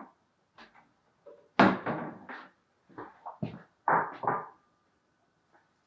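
A run of short knocks and clunks from bowls being handled and a microwave door being opened and shut.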